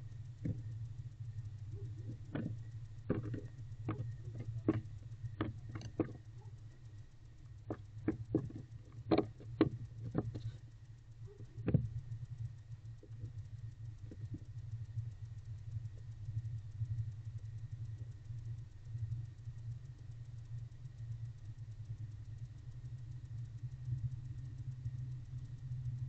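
A barn owl moving about inside a wooden nest box: a string of sharp knocks and scratches from its feet and body against the wood and floor debris, stopping about halfway through. Under them runs a steady low electrical hum from the nest-box camera's microphone.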